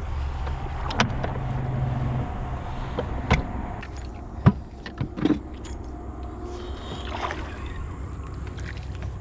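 Electric trolling motor running with a low hum that eases off about two seconds in, with a handful of sharp knocks and clicks from gear and casting on the aluminium jon boat.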